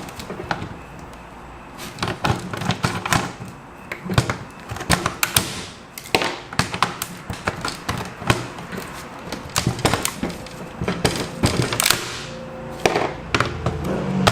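Vise-grip pliers clicking and knocking against a laptop hinge and its chassis as they pry at it: irregular clicks and knocks throughout, the hinge stuck fast.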